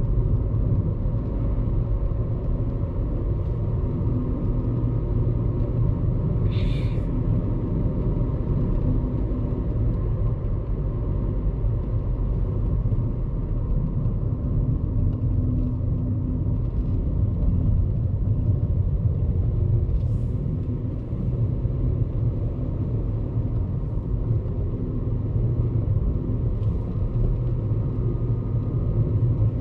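Steady low rumble of a car driving along a highway, road and engine noise heard from inside the cabin, with a brief high sound about seven seconds in.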